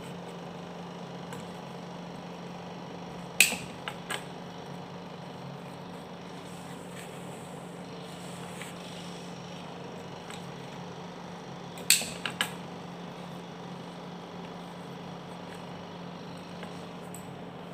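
A steady low hum with two brief clusters of sharp taps and knocks, a few seconds in and again past halfway, as hands handle a potted flower arrangement.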